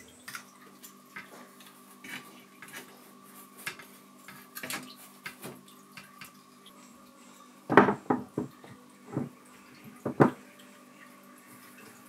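Stones clicking and knocking against one another as rocks are handled and fitted into a rock wall. Small scattered clicks, then a cluster of louder knocks about eight seconds in and two more near nine and ten seconds.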